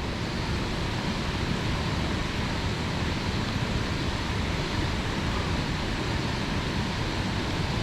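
Steady rushing of a swollen mountain stream.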